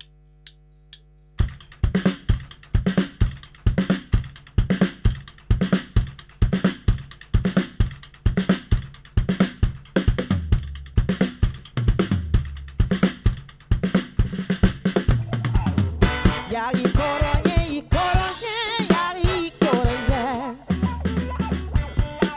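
Three drumstick clicks counting in, half a second apart, then a full drum kit groove with snare, kick and hi-hat starts about a second and a half in. A deep bass line joins about ten seconds in, and a brass section of trumpet, trombone and saxophone comes in over the drums about sixteen seconds in.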